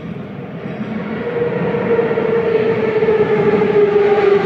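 Moscow metro 81-717.5M 'Nomernoy' train approaching along the platform, getting steadily louder: a rumbling run with a traction-motor whine whose pitch sinks slowly as the train slows into the station.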